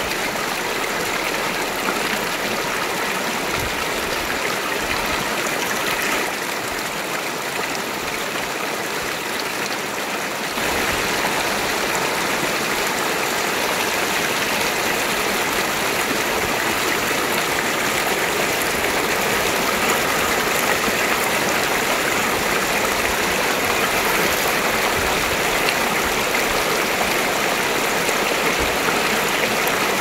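Rocky mountain stream rushing and splashing over stones, a steady rush of water. About ten seconds in it steps up louder and brighter, a fuller white-water rush around boulders.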